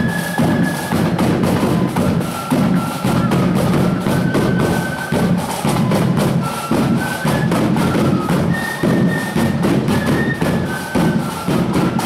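Marching flute band playing: a quick tune on the flutes over dense, rapid snare drumming and bass drum beats.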